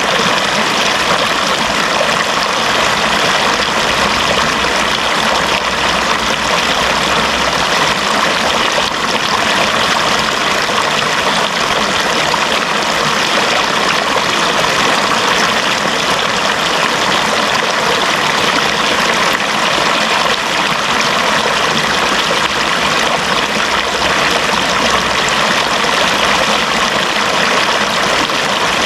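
Running water in a steady, continuous rush.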